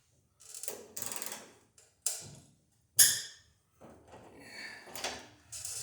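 Socket wrench working on a 9/16 bolt: a stretch of rattling, separate metallic clicks, one sharp ringing clink about three seconds in, then more scraping and clicking.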